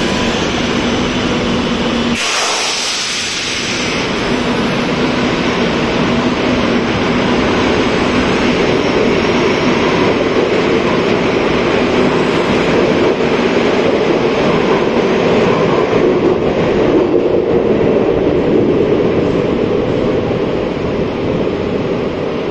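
Madrid Metro Serie 2000A electric train pulling out of the station. A short burst of air hiss comes about two seconds in, then the motor and wheel-on-rail noise builds and stays loud as the cars pass.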